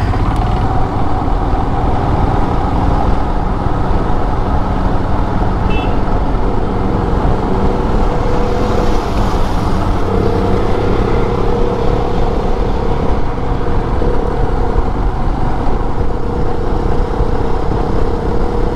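Riding a Royal Enfield Himalayan in traffic: its single-cylinder engine runs steadily under a heavy rumble of wind on the microphone and surrounding road traffic. A steady drone joins about six seconds in and holds to the end.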